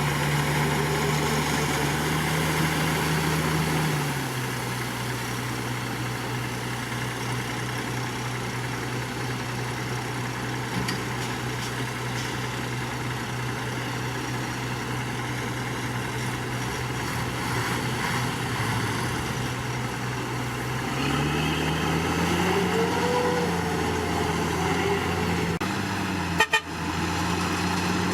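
Komatsu D61PX bulldozer's diesel engine running. Its pitch drops about four seconds in and holds steady for a long stretch, then rises again near the end as the engine speeds up.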